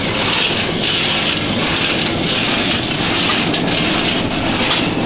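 Cashew cutting machine running: a dense, steady clatter of nuts and metal working through the cutter. A hissing edge swells and fades about once a second.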